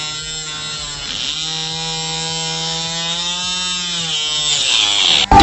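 Small electric toy motor spinning a plastic circular saw disc into a sapling's stem: a steady buzzing hum whose pitch sags about a second in and again near the end as the blade bites and loads the motor. A sudden loud burst cuts in at the very end.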